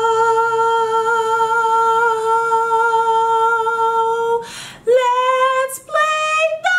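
A woman singing one long held note for about four and a half seconds, then, after a short break, a few short sung notes climbing in pitch.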